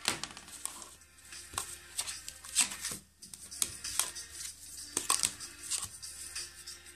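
A recorded song played from a WAV file through a small speaker driven by an Arduino Uno, coming through thin and lo-fi with many sharp clicks.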